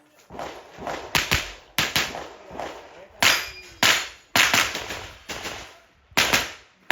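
Rapid string of .22 rimfire rifle shots, about ten sharp cracks at uneven intervals of half a second to a second, with a faint ring of steel targets after some of them.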